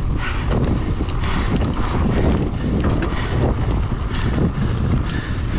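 Wind buffeting the action camera's microphone while a Marin Alpine Trail XR mountain bike rides fast along a dirt singletrack, a steady low rumble. Tyres run on the dirt and the bike's chain and frame rattle in scattered clicks throughout.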